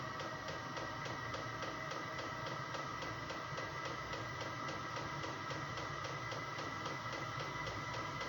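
Chinese diesel air heater running steadily on its first start, its fan whirring with a fixed high hum and its fuel dosing pump ticking rapidly and regularly. The heater is still cold and warming up, not yet blowing hot air.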